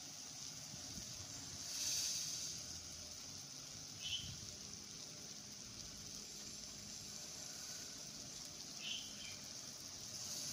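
Chicken drumsticks sizzling in shallow oil in an aluminium frying pan: a steady hiss that swells about two seconds in, with a couple of small pops from the oil.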